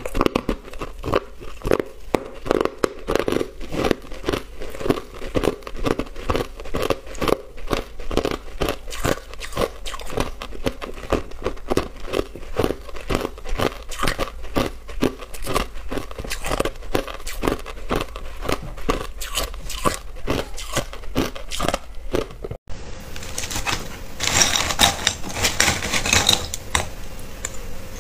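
Crushed ice chewed close to the microphone: a steady run of crunches, several a second. About twenty-three seconds in there is a brief break, then a slab of clear ice is bitten, with sharper, brighter cracking and crackling.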